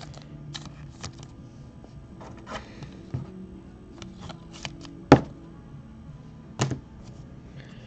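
Trading cards being handled by hand: light rustling and tapping of card stock, with two sharper clicks about five seconds in and a second and a half later.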